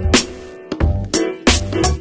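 Background music: strummed guitar with a steady drum beat.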